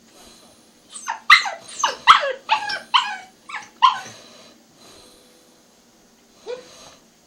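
Puppy barking: a quick run of about nine short, sharp barks, each dropping in pitch, then a single bark near the end.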